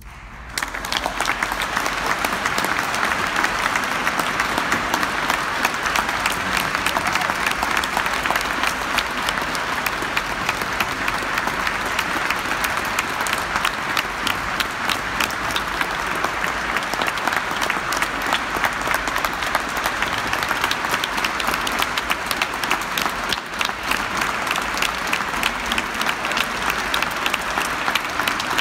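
Audience applauding, breaking out suddenly about half a second in as the music ends: a dense wash of many hands clapping at once.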